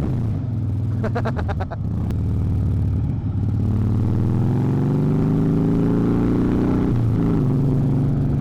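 Harley-Davidson Breakout's V-twin engine under way: the revs climb steadily for a few seconds, drop suddenly with a gear change near the end, then run on steadily.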